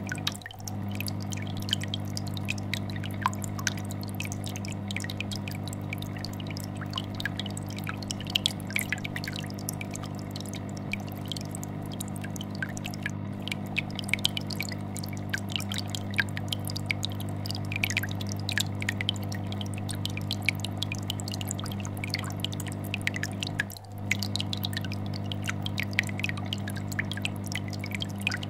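Aquarium air bubbler sending up a constant stream of popping, gurgling bubbles over the steady low vibrating hum of a fish tank filter. The sound dips out briefly twice, about half a second in and again near the end.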